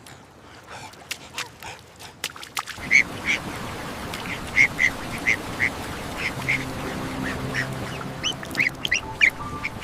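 Ducks calling: a dozen or so short calls, some rising at the end, over a steady hiss that starts about three seconds in.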